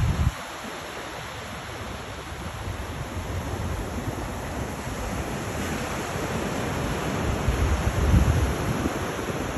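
Ocean surf washing onto a sandy beach, a steady noisy wash of waves, with wind buffeting the microphone in low rumbling gusts, strongest about eight seconds in.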